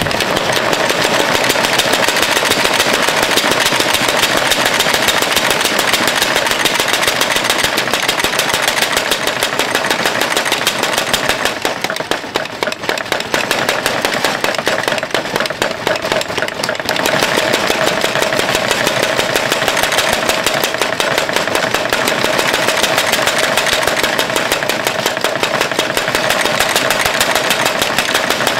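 Mechanical spring power hammer running, a rapid, unbroken pounding of many blows a second.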